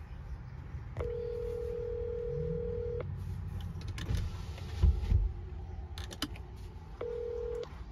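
Phone ringback tone from an outgoing call on speakerphone: a steady tone for two seconds starting about a second in, and again about seven seconds in after a four-second gap, the North American ring cadence. A low rumble sits underneath, with a couple of dull thumps, the loudest sounds, about five seconds in.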